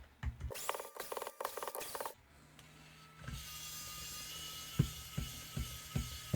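Clicks and rattles of a small plastic Bluetooth speaker being handled and opened. These are followed by a steady small-motor whine with a few light clicks over it.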